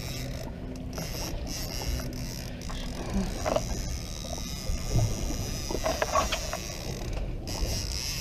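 Small boat's motor running steadily at low speed, with water noise and a few light knocks from about the middle on.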